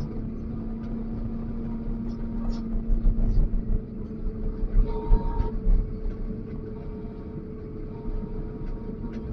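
Wheel loader's diesel engine running steadily, with heavy low knocks and surges of load about a third of the way in and again around the middle as the machine works.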